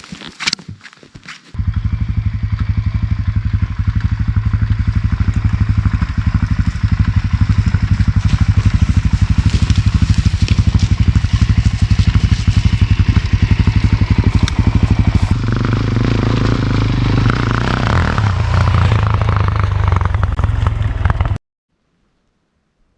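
Dual-sport motorcycle engine running loud and steady as the bike is ridden on a steep dirt hill. The engine note changes about fifteen seconds in, and the sound cuts off suddenly near the end.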